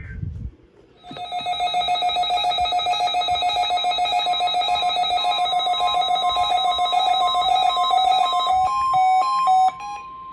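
Synthesized emergency-alert attention tone: a loud, rapidly pulsing buzzy electronic tone, joined about halfway by a second, higher on-off beep. Near the end it breaks into stepped, alternating beeps.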